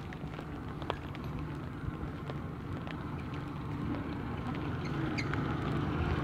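A van's engine running with a steady low hum that grows gradually louder, with scattered light clicks over it.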